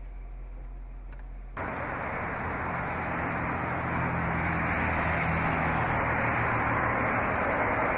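A faint low hum, then about a second and a half in a steady rush of road-vehicle noise with a low drone beneath it starts abruptly and carries on.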